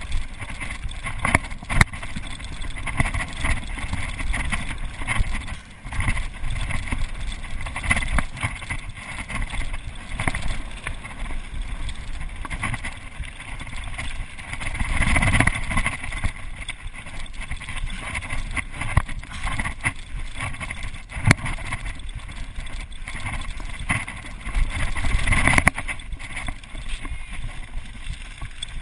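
Mountain bike running fast down a dirt and gravel trail: a continuous rough rumble of tyres over loose stones, with frequent knocks and rattles from the bike over bumps and wind on the action camera's microphone. Two louder, rougher stretches come about halfway through and near the end.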